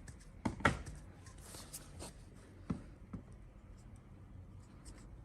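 Faint scraping strokes of a pedicure blade shaving thick, hardened callus on a cracked sole, a few short strokes with small clicks. The skin is still hard after half an hour of soaking, so the blade goes slowly.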